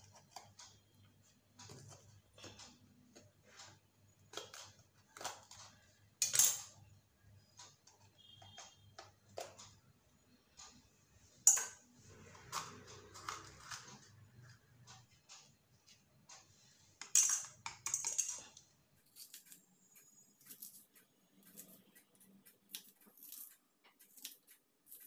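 Kitchen knife cutting green bell peppers on a wooden chopping board: irregular light taps and clicks as the blade meets the board, with a few louder knocks.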